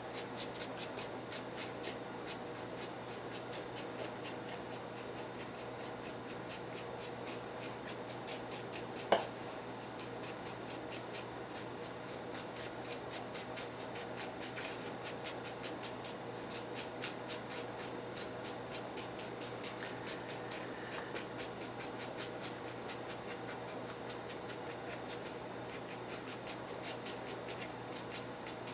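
A pen making quick, short strokes on a paper journal page, a steady scratchy rhythm of about three to four strokes a second. A single louder tap comes about nine seconds in.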